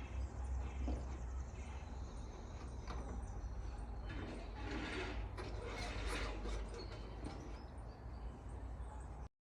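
A diesel truck engine running with a steady low rumble, with scattered clanks and rattles over it. It cuts off abruptly near the end.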